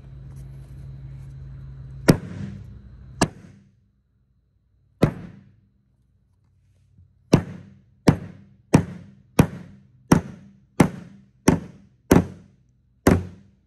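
Rubber mallet knocking down the raised end joint of a Supercore click-lock floor tile so the joint locks flat. There are about a dozen sharp knocks: a few spaced strikes at first, then a steady run of roughly three blows every two seconds in the second half.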